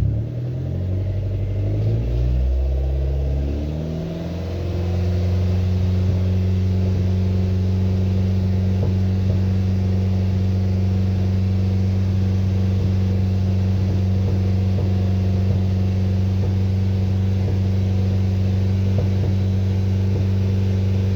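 2004 Dodge Neon SRT-4's turbocharged 2.4-litre four-cylinder engine revving up over the first few seconds, then held steady at about 2,500 to 3,000 RPM, fully warmed up. No lifter tick stands out: the owner judges that the ticking has gone after fitting new hydraulic lash adjusters.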